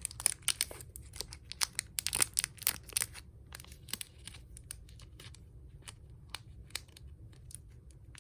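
Handling noise: a quick run of crinkling and light clicks, dense for the first three seconds, then thinning out to scattered ticks.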